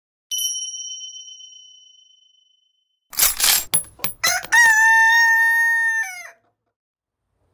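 A single bell-like ding rings and fades over about two seconds. About three seconds in, a white rooster flaps its wings in a few quick bursts, then crows once in a long, steady call that drops in pitch at the end.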